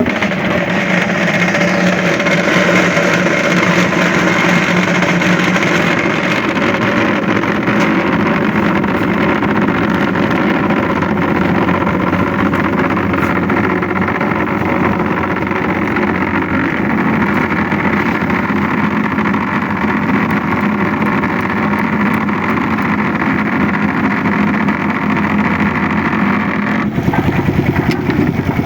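A motor running steadily with an even, unbroken drone, changing pitch and character shortly before the end.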